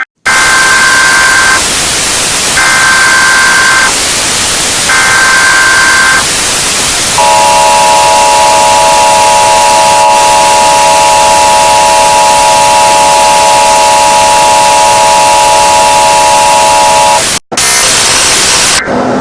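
Mock Emergency Alert System broadcast, very loud and buried in heavy static. It opens with three short bursts of screeching digital data tones, the alert header. Then the long, steady two-tone attention signal runs for about ten seconds, cuts off abruptly, and leaves static.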